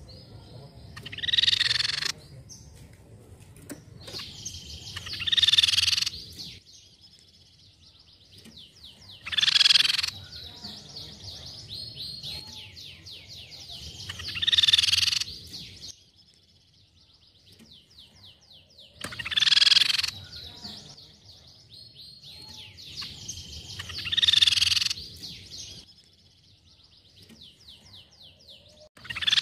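Crescent-chested babbler (tepus pipi perak) calling: a loud, high call about every five seconds, each lasting about a second, with a fainter, fast rattling trill between the calls.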